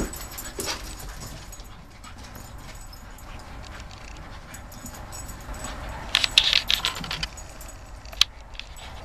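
Cairn terriers at play, with faint dog sounds and light clicks. About six seconds in comes a second of collar tags jingling.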